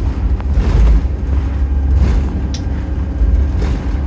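Inside an Optare Solo SR single-deck bus on the move: steady low engine and road rumble with a constant drone. A couple of brief clicks from the bus interior come through past the middle.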